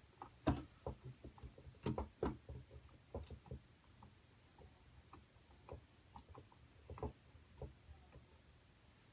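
Irregular light clicks and taps of a screwdriver working a screw inside a CB radio's metal chassis, thick in the first few seconds and sparser after.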